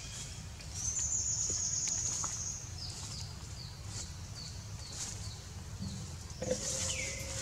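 Wild birds calling: a high, rapid trill, then a string of short falling chirps at about three a second. Near the end a different call starts, a held lower note with a falling whistle, over a steady low rumble.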